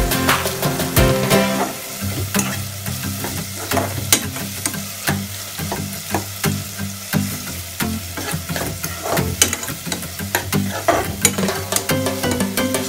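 Metal spoon stirring, scraping and clicking against a non-stick pot while chopped tomatoes sizzle and fry in oil. Background music is heard clearly at the start and again near the end.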